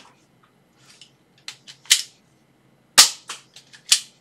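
Nerf Elite 2.0 Slyshot, a small single-shot spring-powered dart blaster, being primed and fired. A string of plastic clicks and sharp snaps, with the loudest snaps about two seconds in, at three seconds and near the end.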